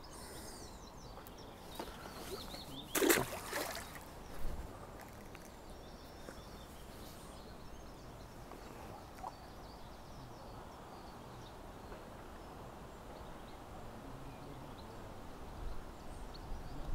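Faint steady outdoor background noise, broken by a short sharp rustle or knock about three seconds in and a softer one about a second and a half later.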